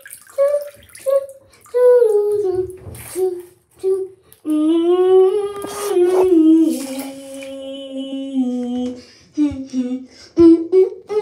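A voice humming a slow, wordless tune, with long held notes that step down in pitch in the middle, and brief water splashes in a bathtub in between.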